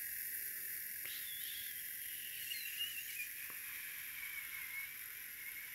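Bearing in a dental handpiece head spinning down: a faint, wavering whine that slowly falls in pitch over a steady hiss, with a couple of light clicks.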